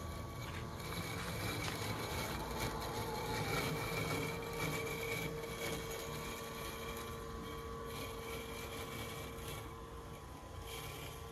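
Husqvarna Automower 450X robotic lawnmower driving and cutting grass: a steady electric motor whine over a low hum, a little quieter near the end.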